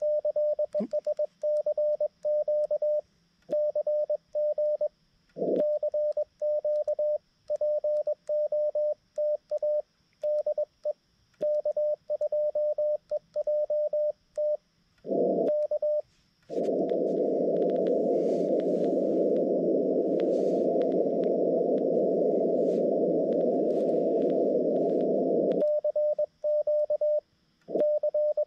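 Xiegu G90 transceiver's CW sidetone: a single mid-pitched beep keyed on and off in hand-sent Morse code as a CQ is called. A little past halfway the Morse stops for about nine seconds of receiver hiss while the band is listened to, then the Morse resumes near the end.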